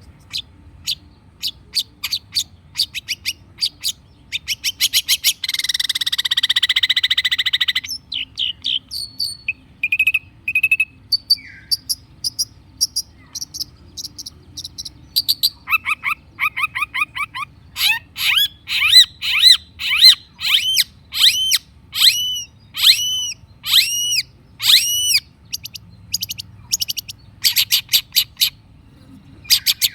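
Long-tailed shrike (cendet) singing a varied song. It gives quick runs of sharp chips, then a harsh rasping stretch several seconds in, and later a series of louder, repeated arching whistled notes.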